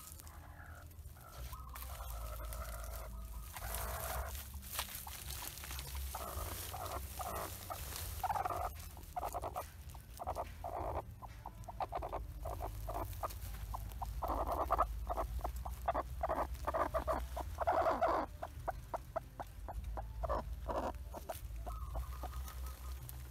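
Two broody hens sitting on eggs, clucking in many short repeated calls, with rustling of the woven sack and dry leaves of the nest now and then.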